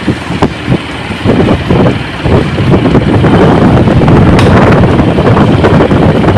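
Electric pedestal fan running with improvised rainbow paint-can-lid blades, a loud, uneven low whooshing of the spinning blades and air blast, with a sharp click about four seconds in.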